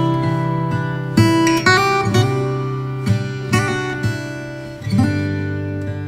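Background music: an acoustic guitar strumming chords, a fresh strum every half second to a second, each ringing out and fading.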